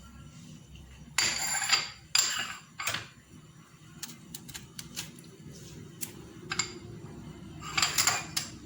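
Spoon scraping and tapping against a container in a few short bursts as ginger is measured and added to the kettle for the tea; another scrape near the end.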